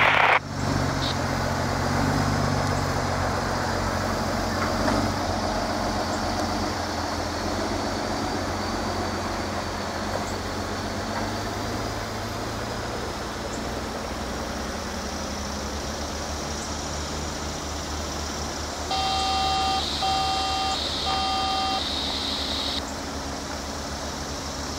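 Steady low engine rumble. About three-quarters of the way through come three short beeps, evenly spaced about a second apart.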